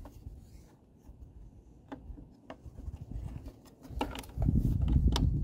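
Plastic air filter cover of an Echo backpack blower being pressed and rubbed into place by hand, with a few sharp clicks and rustling. A louder low rumble comes in near the end.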